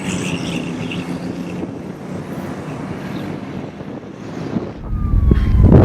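Steady outdoor vehicle and engine hum, then a loud low rumble building near the end.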